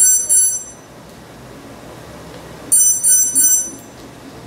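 Brushless motors of a 250-size quadcopter beeping through their ESCs: two short runs of quick, high-pitched beeps, one at the start and one nearly three seconds later. This is the ESCs' signal at the end of throttle calibration.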